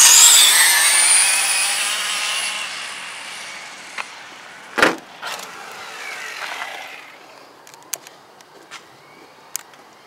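Two brushless-powered Traxxas RC cars, a Rally and a Rustler on Castle Mamba Monster systems, launching at full throttle: a loud, high electric motor and drivetrain whine that climbs sharply at launch, then fades over several seconds as they run away down the strip. A single sharp knock about five seconds in.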